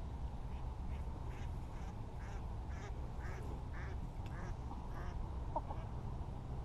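A duck quacking faintly in a series of short calls, about two a second, for roughly five seconds, over a low steady rumble.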